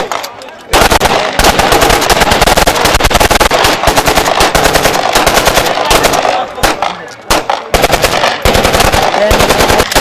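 Celebratory automatic gunfire in long, rapid bursts of shots, with a short break just after the start and another about seven seconds in.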